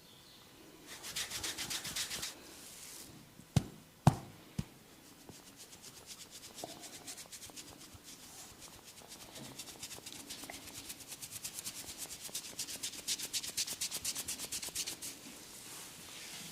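Fingers rubbing and scratching briskly through hair on the scalp in rapid, rhythmic strokes, several a second, during a head massage. After a short first run of strokes come three sharp clicks close together, the loudest sounds, before a long run of scratching.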